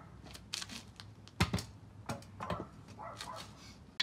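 Scattered clicks and knocks of metal car parts being handled, the loudest a quick pair about one and a half seconds in and another about two and a half seconds in.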